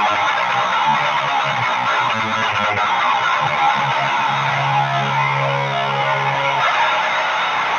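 Heavily distorted electric guitar riffing in B standard tuning through a Boss HM-2 pedal boosted by a Boss SD-1 into a Jet City JCA22H tube amp: the 'chainsaw' tone. About halfway through, a low note is held for about two seconds before the riffing resumes.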